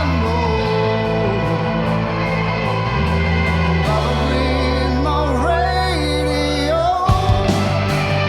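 Rock band playing a song: a male lead voice sings a sliding melody over electric guitar and sustained bass notes.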